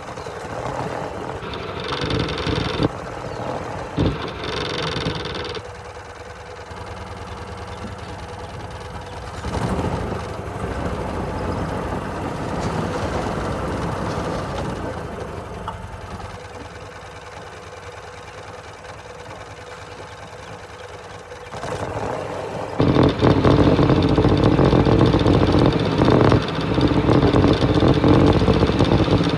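Golf cart's swapped-in Predator 420 single-cylinder engine running as the cart is driven. The sound falls and rises as it moves and is loudest near the end. The exhaust runs quietly with its blown gasket freshly replaced.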